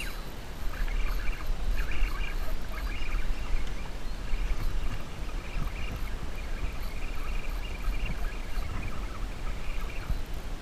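Wind buffeting the camera microphone with a steady low rumble, over the splash and lap of sea water against a kayak hull, which comes in short clusters throughout.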